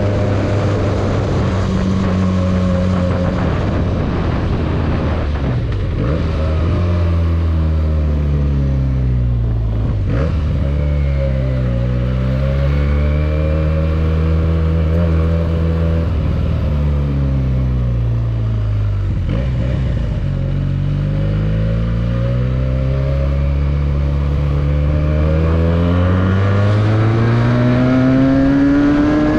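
Benelli 302S motorcycle's parallel-twin engine heard from on board, its pitch falling and rising several times as the bike slows and speeds up, then climbing steadily under acceleration near the end.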